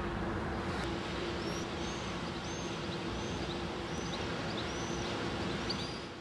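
Steady industrial hum of a lime works, a mechanical drone over a wash of plant noise, with a small bird chirping over it: short, high, arched calls repeating about every half second to second from about a second and a half in. The sound fades near the end.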